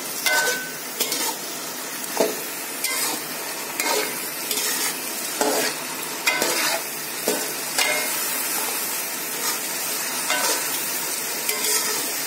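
Chicken pieces frying in oil and masala in a metal pot with a steady sizzle, while a spatula stirs and scrapes them against the pot in irregular strokes about once every half second to second.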